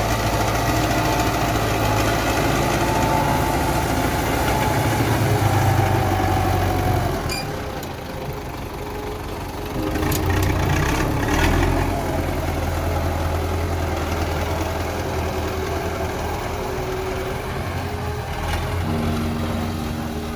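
An engine running steadily; it eases off around seven seconds in and picks up again about three seconds later.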